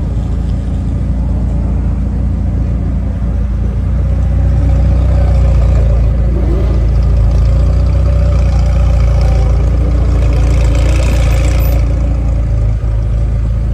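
A McLaren 720S's twin-turbo V8 idling with a steady low drone, which grows louder about four seconds in. Near the end there is a brief hiss.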